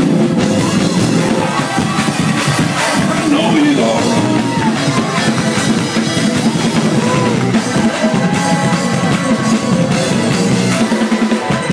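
Loud live church praise music led by a drum kit with frequent hits, with congregation voices rising and falling over it.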